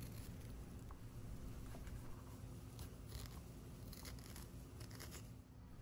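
Faint, soft scrapes of a metal spoon against raw butternut squash, scooping out the seeds and stringy fibres, over a low steady hum.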